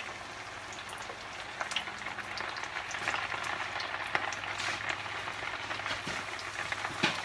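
Coated fish fillets frying in a skillet of hot oil: a steady crackling sizzle full of small pops, growing busier partway through as another fillet goes in, with one sharp pop near the end.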